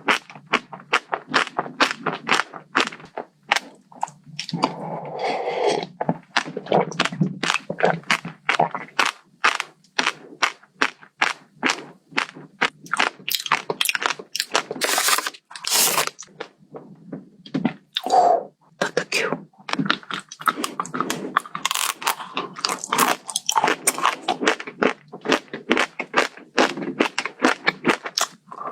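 Close-up eating sounds: a person biting and chewing crunchy food, with dense, irregular crackling crunches.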